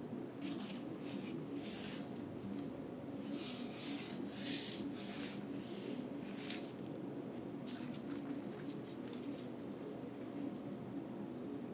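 Irregular scraping and rustling strokes of handling noise, coming in short clusters through most of the stretch and dying away near the end, over a steady low hum.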